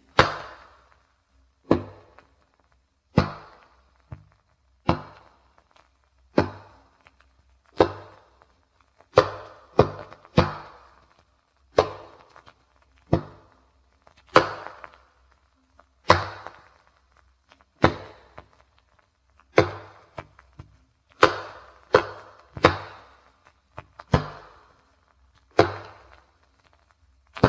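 A mammoth mandible (fossil jawbone) being struck repeatedly as a percussion instrument: a series of sharp knocks, roughly one every one to two seconds and sometimes two in quick succession, each with a short ring that dies away in under a second.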